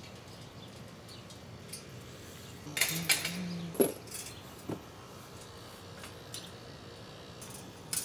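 Steel wire bird-cage panels clinking and knocking as they are handled and fitted together. A short run of metal clatter comes about three seconds in, ending in a sharper knock just before four seconds, with a few faint ticks after.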